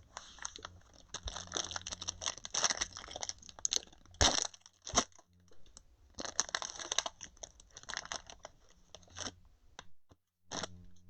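Plastic shrink-wrap being torn off a box of trading cards and crinkled, an uneven run of crackling and tearing with one sharp snap about four seconds in.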